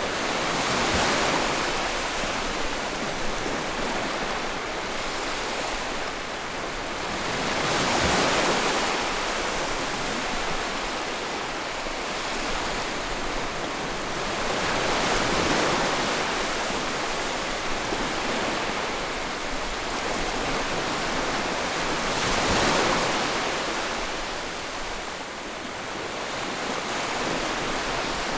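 Sea waves breaking and washing on a shore: a steady rush of surf that swells four times, about every seven seconds, as each wave comes in.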